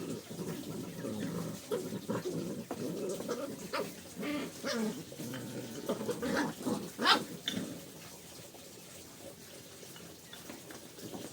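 A dog whining and yelping, a run of short cries that sweep sharply up in pitch, strongest in the middle and quieter near the end.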